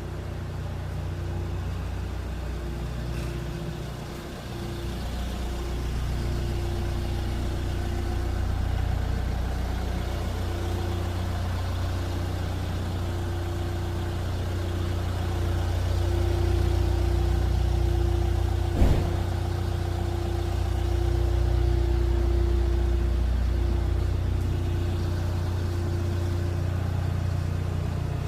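A motor running steadily with a low hum and a wavering higher tone over it, and a single sharp knock about two-thirds of the way through.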